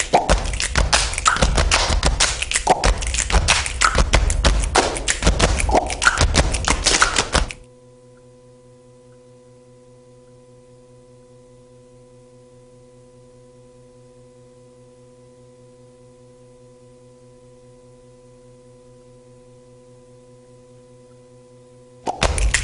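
Fast, dense percussive bumper music of quick taps and thumps. About seven and a half seconds in it cuts off, leaving a steady electrical hum of several low tones. The percussion comes back near the end.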